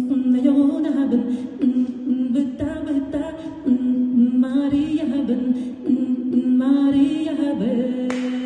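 Yakut dėgėrėn folk song sung a cappella by one voice, with guttural throat catches (khabarga yryata) breaking a steady held pitch. Applause starts near the end.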